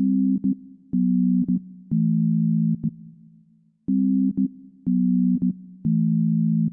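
Background music: a low steady note repeating in blocks of about a second, with sharp clicks between them.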